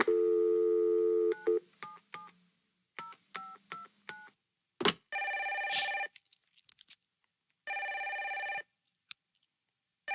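Telephone call being placed: a steady dial tone, then a quick string of touch-tone keypad beeps in two groups, a click, and the ringing tone sounding twice, about a second each, as heard through the line.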